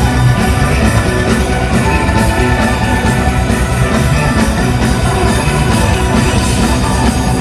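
Live hard-rock band playing loudly and without a break: drum kit, bass guitar, electric guitar and keyboard, with no singing.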